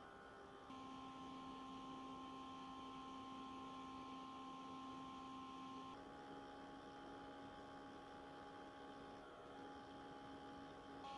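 The original CPU cooling fan of a ThinkPad T430 laptop, running on its own with a faint, steady hum and whine. About six seconds in it changes from fan level 3 to level 4, and the pitch of the hum shifts.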